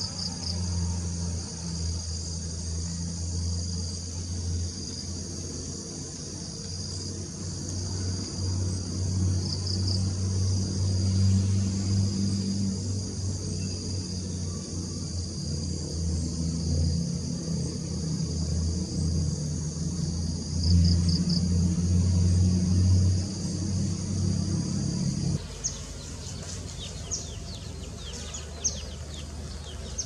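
A steady high-pitched chorus of insects trilling, with a loud, uneven low rumble underneath. About 25 seconds in, the rumble cuts off and the insect chorus continues with scattered short, sharp chirps.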